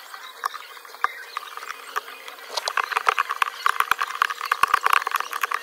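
Shattered iPhone 13 Pro Max back glass being scraped and picked off the phone, a run of small sharp clicks and crackles that grows busier and louder about two and a half seconds in.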